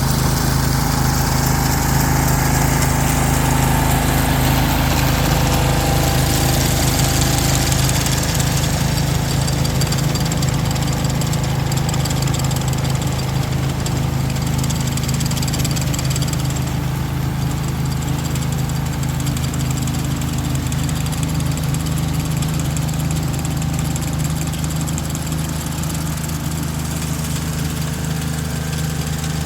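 Ryan GreensAire walk-behind core aerator's gas engine running steadily as it works, easing off slightly in loudness toward the end.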